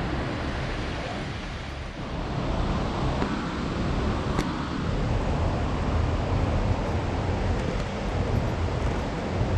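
Steady rushing of a waterfall, heavy in the low end, with a single sharp click about four seconds in.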